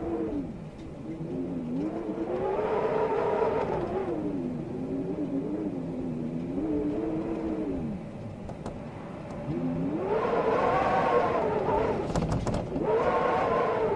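Storm wind howling: a moaning, pitched tone with overtones that rises and falls with each gust over a background rush. The strongest gusts come about two seconds in and again over the last four seconds.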